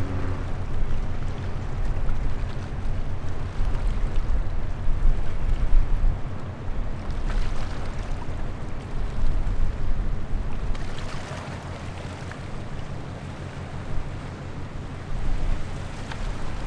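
Low, steady drone of ship diesel engines from a tug towing a large container ship, with wind buffeting the microphone.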